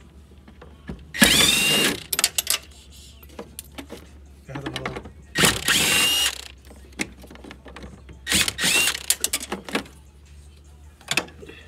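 Cordless drill with a socket on an extension, run in three short bursts of about a second each to spin out bolts in a car's engine bay. Its motor whine rises in pitch as it spins up, with small metallic clicks and clinks between the bursts.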